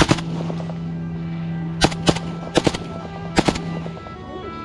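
Short bursts of gunfire, two or three quick shots each: one right at the start, then three more bursts less than a second apart from about two seconds in, over music with a long held low note.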